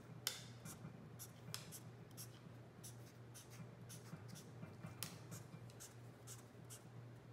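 Black marker drawing short strokes on graph paper: a faint, irregular string of quick scratches and squeaks, roughly two a second, as axes and tick marks are drawn. A low steady hum lies under them.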